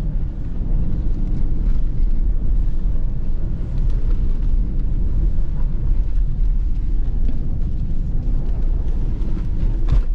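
Toyota Land Cruiser 300 GR Sport with its 3.3-litre twin-turbo diesel being driven: a steady low rumble of engine and tyres, with a few faint clicks.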